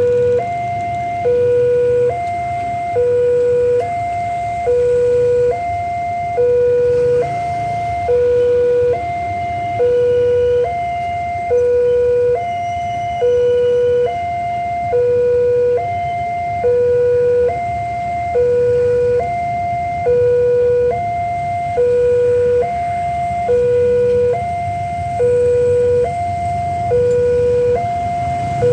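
Railway level-crossing alarm sounding its electronic two-tone warning, a lower and a higher tone alternating steadily about every three-quarters of a second. It signals that the barrier is down and a train is approaching.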